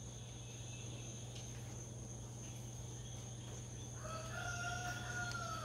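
A rooster crowing once, a held call starting about four seconds in and sagging slightly at the end, over a steady low hum.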